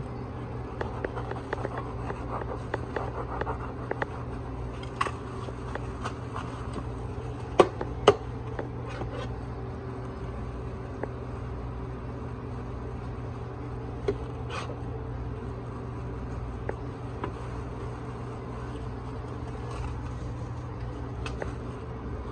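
Steady low hum of kitchen equipment under light scraping and clicking as a metal scoop and gloved hands spread shredded chicken on a sandwich roll. Two sharp clicks half a second apart, about a third of the way in, are the loudest sounds.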